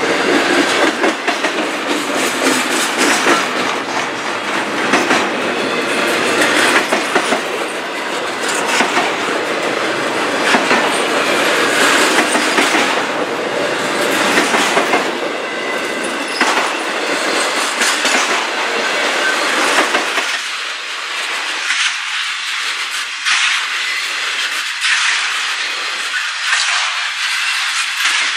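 Intermodal freight cars rolling past close by: steel wheels on rail in a steady rushing clatter, with repeated clicks as wheel sets pass over rail joints. About twenty seconds in the deep rumble drops away, leaving a thinner, higher rush.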